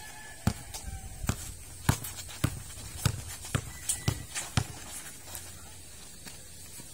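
Basketball dribbled on a concrete court: a run of about eight bounces, roughly two a second, that stops a little past halfway through.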